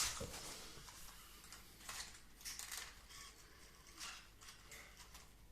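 Sony Aibo ERS-7 robot dog's joint servo motors making several short, faint, high-pitched whirs as its limbs and head move through a movement test.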